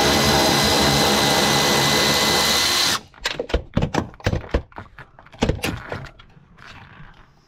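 Cordless electric ratchet spinning a bolt out of the convertible top frame's hockey-stick bracket, a steady motor whine that cuts off about three seconds in. Then a run of irregular clicks and knocks.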